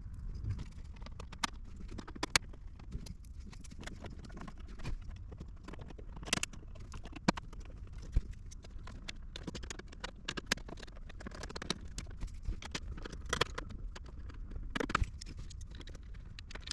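Scattered, irregular clicks and light knocks of hands fitting and handling plastic dashboard trim parts, over a low steady rumble.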